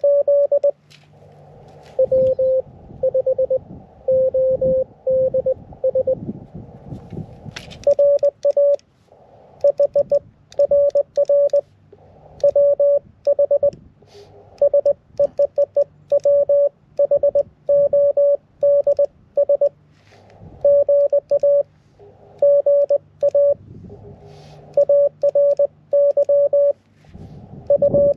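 Morse code (CW) on the 15-meter amateur band from a QRP transceiver: a high beep keyed on and off in dots and dashes over a bed of receiver hiss. A second signal at a slightly lower pitch sends for a few seconds near the start.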